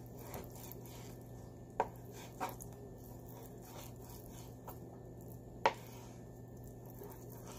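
Kitchen knife cutting food on a cutting board: a few sharp knocks of the blade on the board, with three louder ones about two seconds in, half a second later, and again toward the end.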